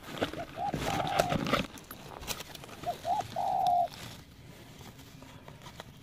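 Spotted dove cooing twice, each call two short rising notes followed by a longer held note. Rustling from handling and a few clicks under the first call, in the first couple of seconds.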